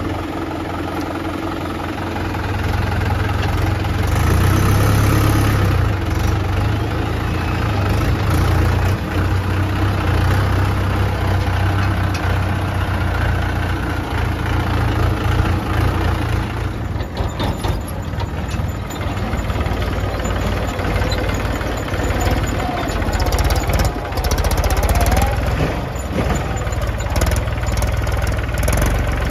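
Farm tractor's diesel engine running close up, a steady low engine note throughout, changing character about halfway through.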